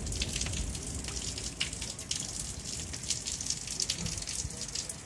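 Rain falling, with scattered drips and patters over a steady hiss, and gusty wind rumbling on the microphone.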